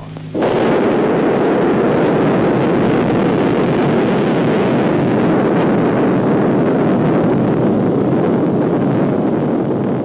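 Atomic bomb explosion: a loud, steady rush of noise that starts abruptly about half a second in and runs on without a break, easing slightly near the end.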